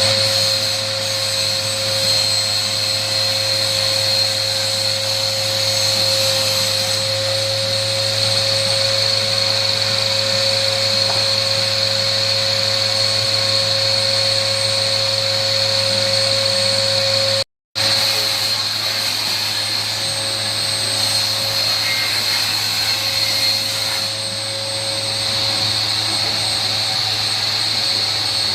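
Electric power-tool motor running steadily at speed, with a high whine over a lower hum. It breaks off for a split second about two-thirds of the way through.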